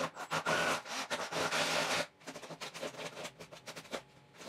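A drill bit scraping and rasping as it is worked around a rough cable hole in a wall to round it out, loud for about two seconds, then lighter scratching and clicks.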